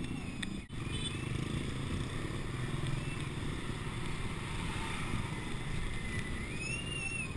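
Busy street traffic: motor scooters and a minibus running and passing close by, their engines a steady low rumble. A faint high tone rises and falls near the end.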